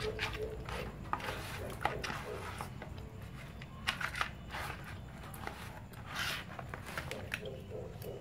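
Hands rubbing marinade over a whole raw duck in a plastic basin: soft, irregular wet rubbing with scattered light clicks and knocks, as from a metal spoon against the bowl.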